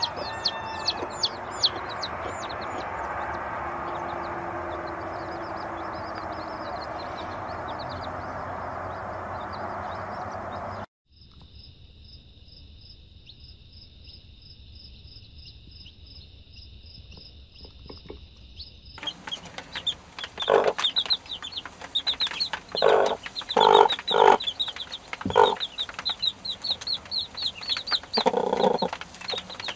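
Baby chicks peeping in quick, high cheeps around mother hens. In the second half a hen's clucks come in loud bursts, the loudest sounds. In the middle a steady high tone holds for several seconds.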